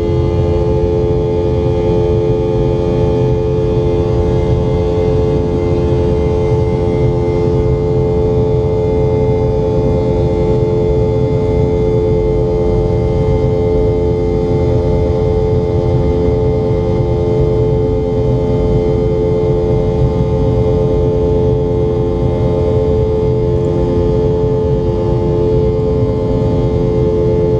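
Cabin noise of a Boeing 717 in flight: a steady drone from its rear-mounted Rolls-Royce BR715 turbofans, with several steady humming tones over a low rumble of engine and airflow.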